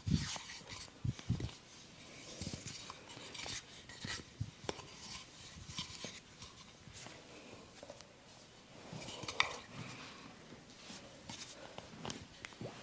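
Hands massaging oiled skin close to the microphone: a steady run of rubbing, squelching and small clicks, with a few soft thumps in the first second or so.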